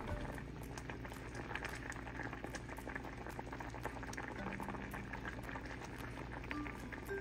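Fish curry bubbling at a rolling boil in a clay pot, a steady hiss full of tiny pops from bursting bubbles.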